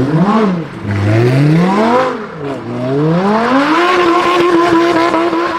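Sports car engine revving: the pitch rises and falls twice, then climbs and holds steady at a high pitch from about four seconds in.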